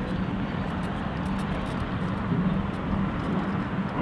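Steady low rumble of outdoor ambient noise with a wavering low hum and no distinct events.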